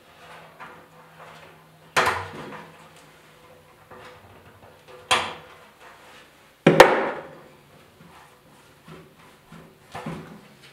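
Sharp knocks and clunks of a steel motorcycle fuel tank and a hand tool being handled on a wooden workbench while a fuel line is worked off it: four louder knocks with a short ring after each, the loudest about two-thirds of the way through, among smaller taps.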